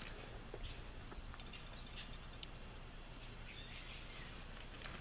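Faint, scattered light clicks and small squeaks of plastic condiment bottles, soy sauce and then sriracha, being shaken and handled over a bowl of ramen.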